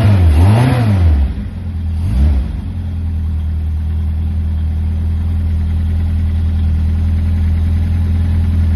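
Reliant Bond Bug's small four-cylinder engine, freshly started, revved a few times in the first couple of seconds and then idling steadily.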